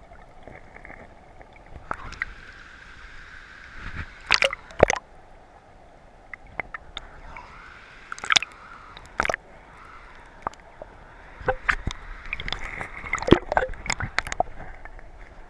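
Shallow river water sloshing and gurgling around a camera held at and just under the waterline. Scattered sharp clicks and knocks come in clusters a little over a quarter of the way in, near the middle and toward the end.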